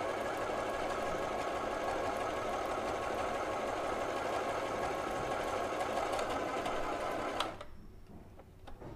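Huafeng FHSM-618 household sewing machine running at high speed, sewing a straight stitch forward and in reverse: a steady motor and needle whir that stops abruptly with a click about seven and a half seconds in.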